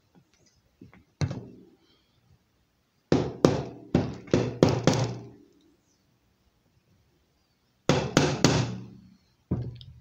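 Sharp knocks from a wooden block held against a bicycle rear hub being struck, tapping the dust cap into place. There is one knock about a second in, then a quick run of six, then three more near the end, each with a short ring.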